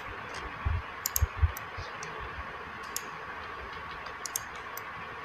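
Scattered clicks of a computer mouse and keyboard, a few with a dull knock in the first second and a half, over a steady hiss with a faint steady tone.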